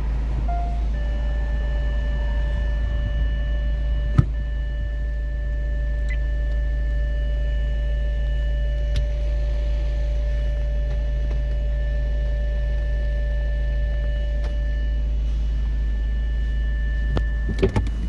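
Kia Sportage engine idling, heard from inside the cabin as a steady low hum with a faint steady whine above it. A sharp click comes about four seconds in, and a few knocks come near the end.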